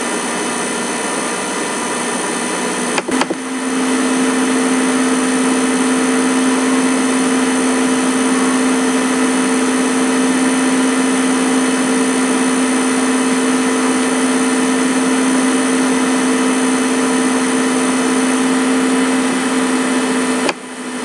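Computer cooling fan and machine hum under heavy processing load while Excel's Solver runs its evolutionary search. A steady hum comes in with a click about three seconds in and stops just before the end, over a constant background hiss.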